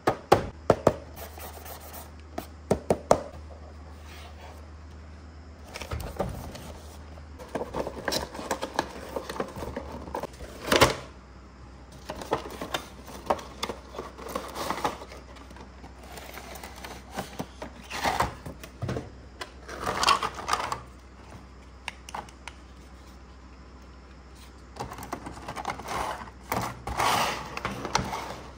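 A cardboard toy box and its clear plastic packaging tray being handled and opened by hand: a run of sharp clicks and taps with stretches of rustling.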